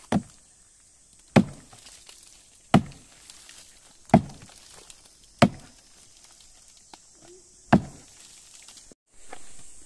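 Axe chopping into the trunk of a fallen tree: six heavy blows to the wood, about one every second and a half, the last after a slightly longer pause.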